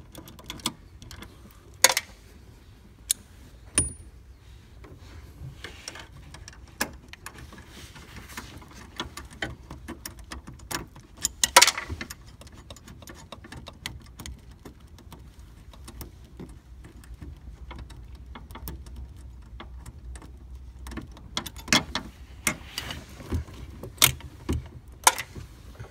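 Irregular clicks, knocks and rattles of hands working the wiring harness and bracket hardware in the car's storage compartment. There are a few sharp knocks about 2 and 11 seconds in and a busier run of clicks near the end, over a low steady hum.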